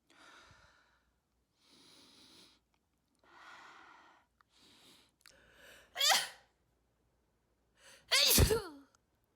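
A person building up to a sneeze with a series of soft, hitching, breathy inhales, then two loud sneeze bursts about two seconds apart, the second longer and wet and spitty.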